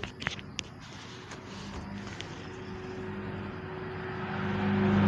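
A few light knocks as a hardcover book is handled on a desk, then the engine and tyre noise of a motor vehicle growing steadily louder as it approaches.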